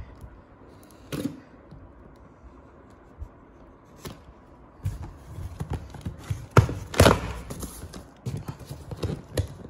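A knife cutting along packing tape on a cardboard box, quiet with a few single clicks. From about halfway the box flaps are pulled open: cardboard scraping, knocking and rustling, loudest a little past the middle.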